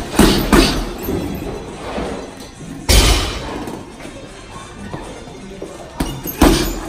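Boxing-gloved punches hitting a Title Boxing heavy bag in short bursts: two quick hits at the start, one hard hit about three seconds in, and two more near the end, with quieter moments between them. Background music plays underneath.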